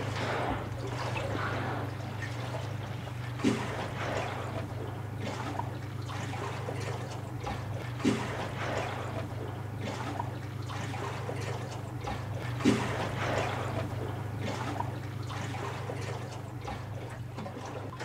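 Water lapping and trickling against a small boat's hull over a steady low hum, with three louder splashes about four to five seconds apart.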